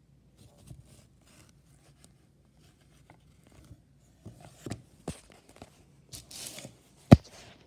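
Jigsaw puzzle pieces handled and slid about on a wood-grain floor: faint rustles and light taps, a few clearer taps a little past halfway, and one sharp knock near the end.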